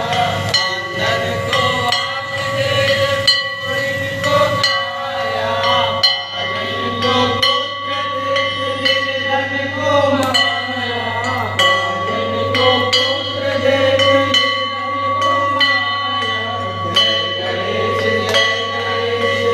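A Hindu aarti being sung by a group of devotees, with a bell ringing steadily and hands clapping in time.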